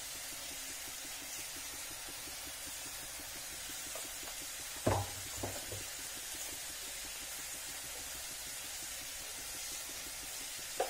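Bitter gourd slices frying in a black iron kadai: a steady, soft sizzle, with a sharp knock about five seconds in, a lighter one just after, and another near the end.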